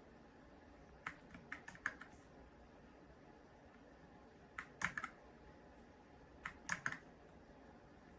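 Typing on a YUNZII X98 gasket-mounted mechanical keyboard with light, pre-lubed Snow switches: short runs of a few keystroke clicks about a second in, near the middle, and again a couple of seconds later, with quiet pauses between.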